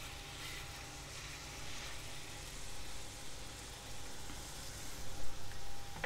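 Ground-beef burger patty sizzling steadily in hot oil in a nonstick frying pan, just pressed flat smash-burger style. A couple of louder crackles come near the end.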